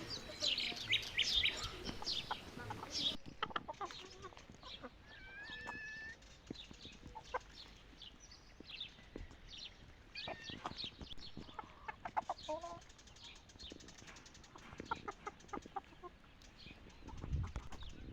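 Chickens clucking, with many short scattered clicks and taps and a few brief chirps.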